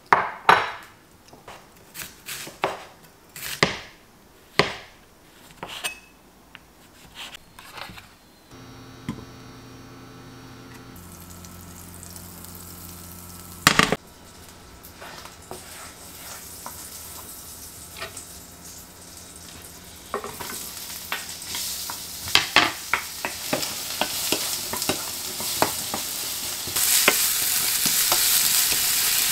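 Kitchen handling knocks and clicks for the first several seconds, then a steady hum and one loud knock. From about twenty seconds in, sliced onions sizzle in a frying pan, louder near the end, with the light knocks of a wooden spoon stirring them.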